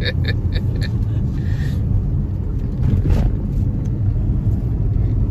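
Steady low rumble of a car on the move, engine and road noise heard from inside the cabin.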